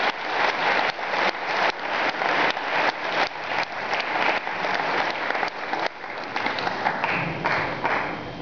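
Audience applauding, the clapping dense at first, then thinning and dying away near the end.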